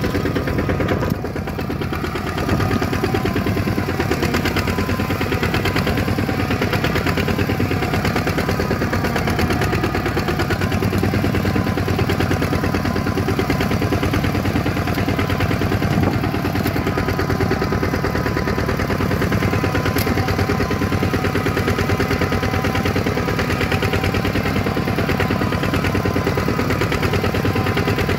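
Single-cylinder diesel engine of a two-wheel walking tractor running steadily under way, with a fast chugging beat. It is briefly quieter about a second in, then picks back up.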